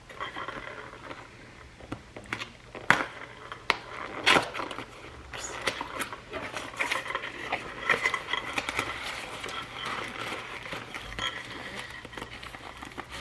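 Paper and packaging crinkling while small objects are handled, with scattered light clicks and two sharper knocks about three and four seconds in.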